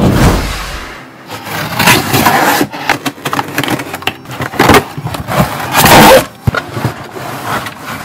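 Cardboard shipping box being opened by hand: packing tape ripping and cardboard flaps scraping and rustling in several loud, rough surges as the box is pulled open and the boxed keyboard slid out.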